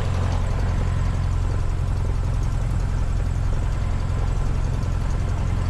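Cessna 150's Continental O-200 four-cylinder engine and propeller running steadily at low taxi power, about 1300 to 1400 RPM.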